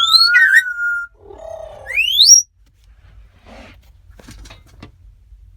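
African grey parrots whistling: loud, clear whistles that rise sharply in pitch, with a rough squawk between them. After about two and a half seconds only faint clicks and soft chatter remain.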